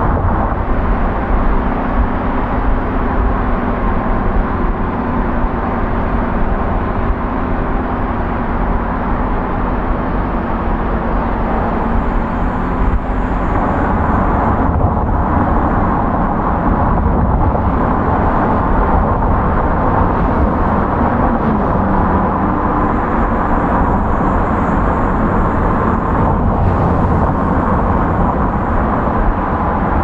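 A car driving, with steady road and tyre noise. A low, even hum under the noise fades out about thirteen seconds in.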